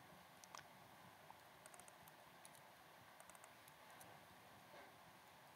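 Near silence with faint, scattered laptop keyboard clicks in small clusters, typing over quiet room tone.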